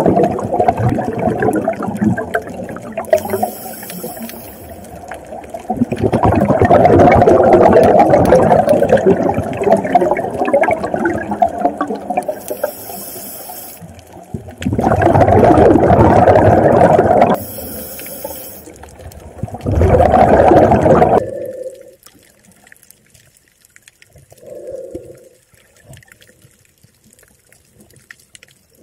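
Scuba regulator breathing heard underwater: long rushes of exhaled bubbles alternating with the hiss of inhaling through the regulator, several breaths in a row. About two-thirds of the way in the breathing stops and only faint bubbling is left.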